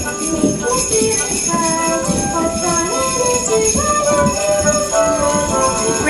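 Hand-held sleigh bells jingling, shaken by a group of children, over music with a melody of held notes.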